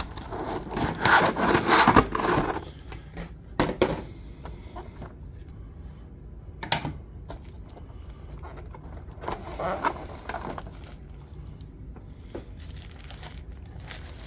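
Cardboard and plastic packaging handled as a boxed model locomotive is lifted out: scraping and rustling, loudest in the first two and a half seconds, with a few sharp clicks and another short rustle about ten seconds in.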